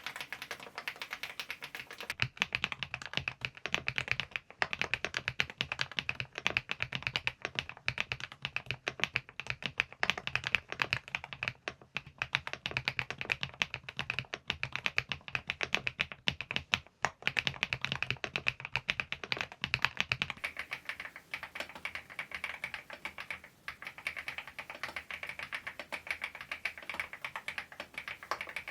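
Fast, continuous typing on a Preflow AK74 PRO full-size mechanical keyboard: a dense, unbroken stream of key clacks. The tone of the keystrokes changes about two seconds in and again about two-thirds of the way through.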